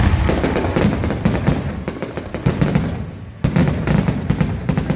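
Aerial fireworks going off in quick succession: a dense string of sharp bangs and crackles over deep booms, with a fresh volley of bangs about three and a half seconds in.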